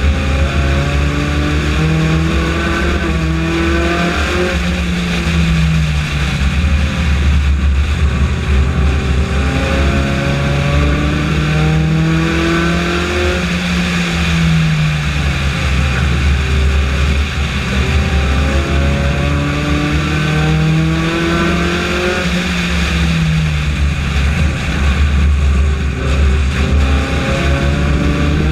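Honda race car engine at racing speed, heard from the car itself: its pitch climbs for a few seconds as it accelerates down each straight, then drops as the driver lifts for the turns, repeating about every eight seconds.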